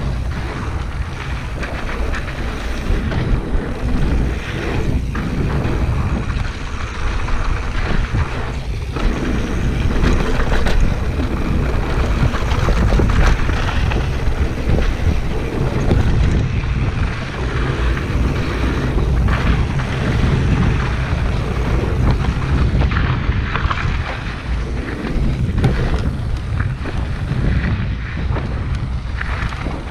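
Steady, loud wind buffeting on a GoPro Hero 5's microphone while riding a mountain bike at speed, mixed with the noise of knobby tyres on a dirt trail.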